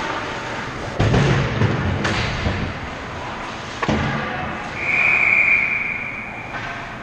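Ice hockey scramble: several sharp thuds and knocks of players, sticks and puck against the ice and boards, the loudest about a second in. About five seconds in a referee's whistle blows one long blast of nearly two seconds, stopping play.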